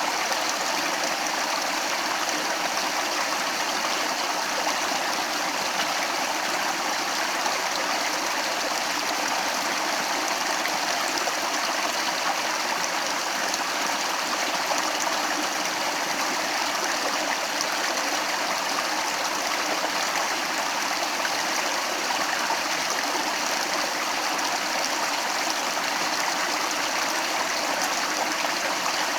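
Water of a stream running over rocks, a steady rushing and gurgling.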